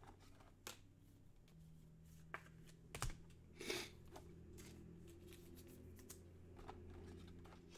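Faint handling of trading cards and packs: scattered soft clicks and rustles, with a sharper tap about three seconds in and a brief rustle just after, over a low steady hum.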